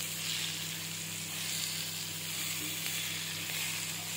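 Sliced bitter gourd, potato, onion and tomato sizzling steadily in hot oil in a non-stick kadhai, just after the ground spices have been mixed in, with a wooden spatula stirring them.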